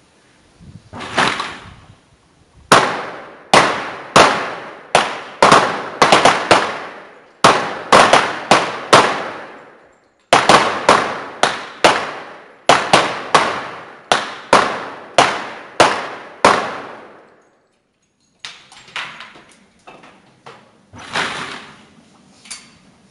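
.45 ACP pistols (1911s) firing along a line of booths: a rapid, irregular string of many overlapping shots from several shooters, each with a ringing echo, running about sixteen seconds with a short break partway. Near the end, only lighter clicks and clatter.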